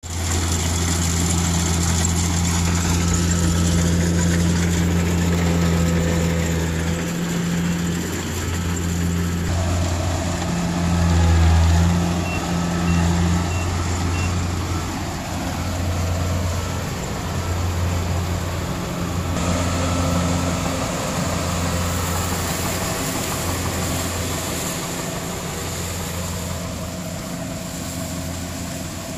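Kubota tracked combine harvester running steadily while it harvests rice: a continuous diesel engine drone with the machine's working noise.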